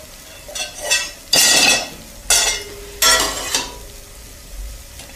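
Chopped carrots and onions being stirred in a pan of warm oil: about four scraping strokes of the utensil through the vegetables, over a sizzle. The vegetables are softening gently in the oil, not browning.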